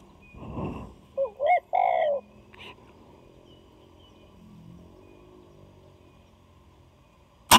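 Spotted dove cooing once, a three-note call of two short notes and a longer one. Near the end comes a single sharp, loud rifle shot, the shot that brings the dove down.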